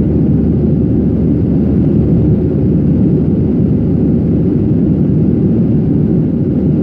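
Jet airliner cabin noise during the climb after takeoff: the engines and rushing airflow make a deep, steady noise heard from inside the passenger cabin.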